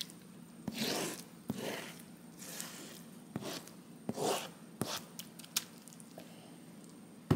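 A kitchen utensil scraping cucumber into a bowl of yogurt: about six short scraping strokes roughly a second apart, with a few light taps and a sharper knock near the end.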